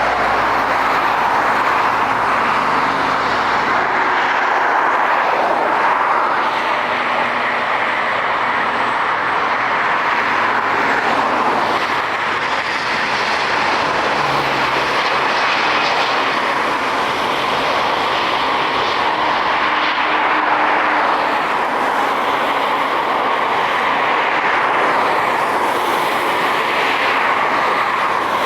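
Jet airliner engines at takeoff thrust: a loud, steady jet noise that holds throughout, with faint shifting whine tones above it.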